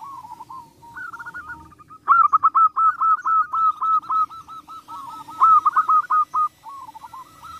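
Zebra dove song: rapid strings of short, rolling cooing notes. They start soft, turn into a loud run about two seconds in, and ease off near the end.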